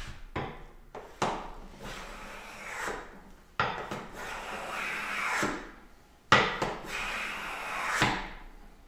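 Wooden hand plane planing a board, taking full-width shavings: three long push strokes of about two seconds each, each a hiss of the blade cutting that starts abruptly, after a few short knocks near the start.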